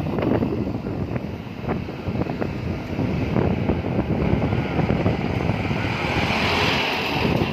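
Vehicle noise with wind buffeting the microphone, growing louder and hissier about six seconds in.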